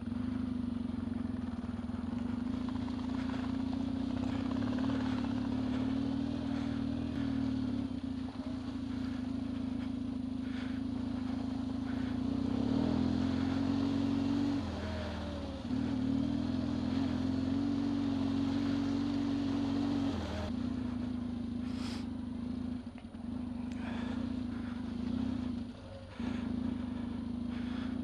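Yamaha XTZ 750 Super Ténéré's parallel-twin engine running under steady throttle as the bike rides along a rutted dirt track, its note dipping and picking up again briefly a couple of times as the rider eases off and changes gear.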